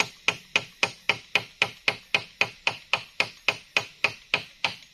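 Rapid, evenly spaced hammer-like blows of a hand tool, about four a second.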